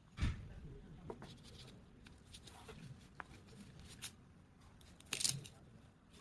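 Scattered handling noises: a thump at the start, light clicks and short rustles, and a louder rustle about five seconds in.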